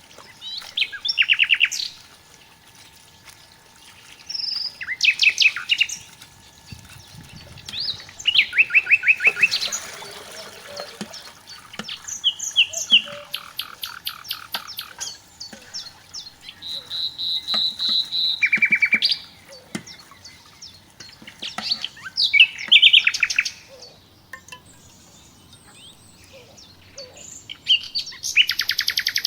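A songbird singing close by: a series of short, fast trilled phrases, one every three or four seconds, with quiet gaps between.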